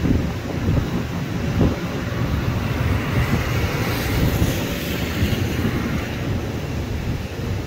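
Low, steady rumble of distant jet airliner engines across the airfield, mixed with gusts of wind buffeting the microphone; a hiss swells up around the middle and fades again.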